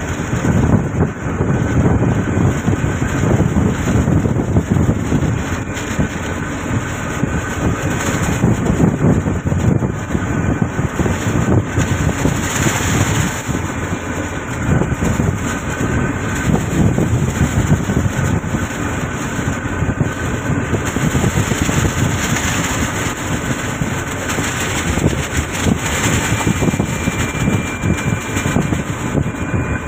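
Steady, loud rumble of a fishing trawler's engine under way, mixed with wind and the wash of a rough sea.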